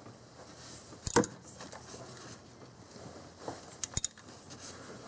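A few metallic clicks and taps from a hand ratchet and extension being worked on a small engine bolt: one louder click about a second in, and two quick clicks near four seconds.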